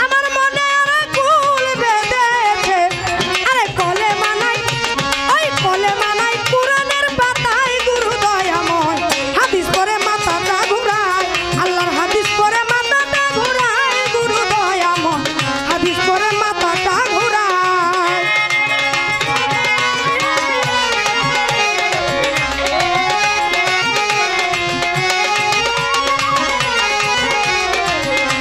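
Instrumental baul music: a violin bowing a wavering, sliding folk melody over a tabla rhythm.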